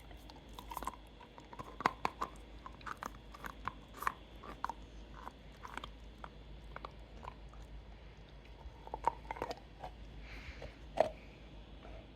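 Yellow Labrador retriever chewing something crunchy, with irregular crisp crunches coming every fraction of a second, busiest in the first half and around nine seconds in.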